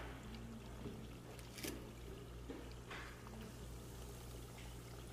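Hot oil in a deep fryer bubbling and sizzling faintly around frying meat patties, with a few light knocks as they are turned, under a steady low hum.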